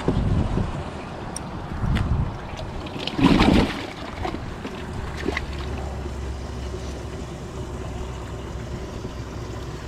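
Wind rumbling on the microphone with a loud gust about three seconds in, then a steady low motor hum from about five seconds in.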